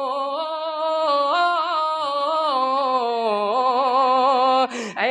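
A man's solo voice singing a naat unaccompanied. He holds one long vowel with a wavering, ornamented pitch that steps up about a second in and drifts back down. A quick sharp breath in comes near the end.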